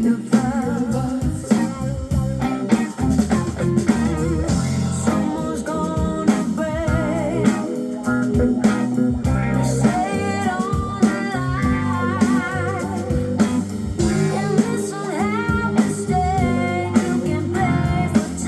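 Recorded blues-rock music with electric guitar, vocals, bass and drums.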